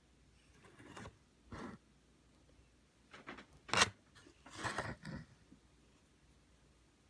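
A house cat scraping and rustling right against the microphone: about six short, irregular scrapes, the loudest just before the middle, as its fur and face rub on the phone and on the cardboard.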